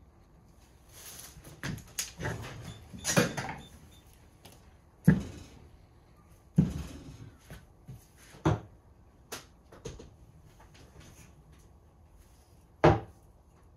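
A series of irregular knocks and clunks from objects being handled and set down on a hard surface, about eight in all, with rustling between the first few; the loudest come about five seconds in and near the end.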